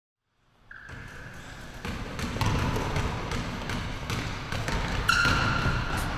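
A basketball bouncing on a hardwood gym floor, with echoing knocks and a few high squeaks of sneakers on the boards. It starts after a moment of silence and grows louder.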